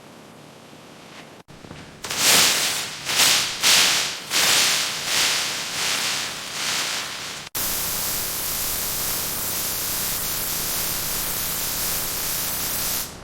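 A hiss that comes in a run of about eight short, loud bursts, then cuts and turns into one steady hiss.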